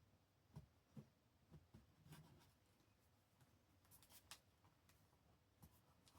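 Near silence, with a few faint soft taps and brief rustles of paper being handled and pressed down.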